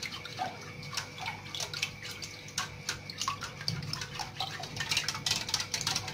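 A whisk beating a thin, uncooked milk, cornstarch and egg mixture in a stainless steel pot: quick liquid sloshing and splashing, with light ticks of the whisk against the pot. The strokes get quicker and louder near the end.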